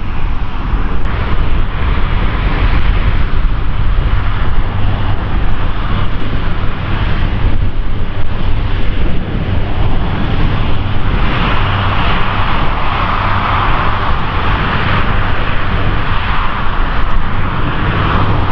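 Large aircraft engines running loud and continuous, with a steady low hum beneath the roar; the roar swells and brightens about eleven seconds in.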